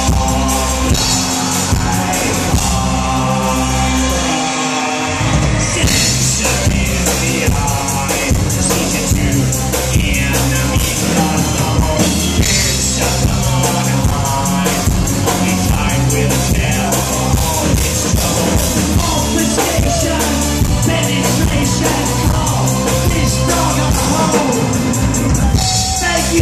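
Live electro-industrial band playing loud, with a singer over drums. The bass drops out briefly about four seconds in and comes back about two seconds later.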